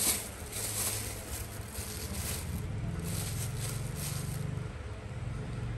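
A low engine drone, its pitch rising slightly about halfway through and settling again, with light crinkling of a plastic bag.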